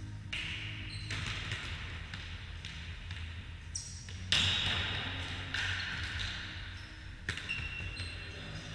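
A volleyball being struck during play in a large sports hall: a series of sharp slaps of the ball, each followed by the hall's echo. The loudest comes about four seconds in.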